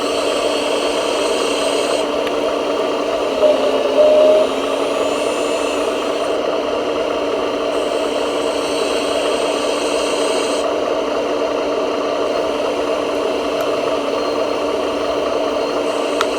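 Radio-controlled construction models running with a steady mechanical whir, with a brief higher-pitched squeal about four seconds in.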